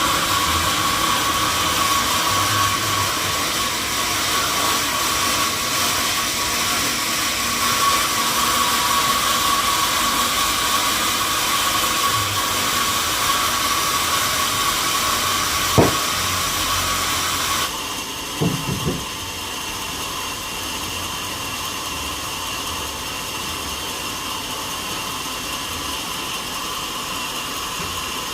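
Sawmill saw machinery running steadily with a high hum, with a sharp knock a bit past halfway. Just after, the sound shifts suddenly to a quieter, steady machine noise with a couple of knocks.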